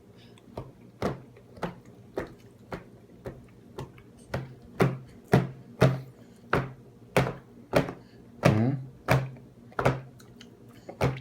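Steady rhythmic tapping or knocking on a hard surface, about two knocks a second, getting louder about four seconds in.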